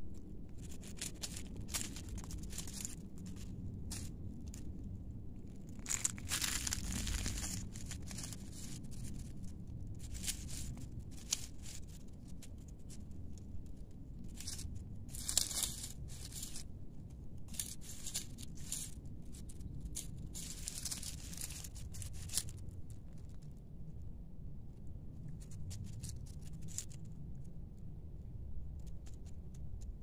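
Dry leaves and gravel rustling and crunching in irregular short bursts as a cat moves and rolls on them, over a steady low rumble.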